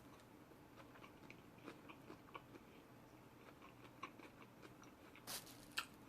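Faint close-up mouth chewing, with small wet clicks scattered through, then a short louder rustle and a click near the end.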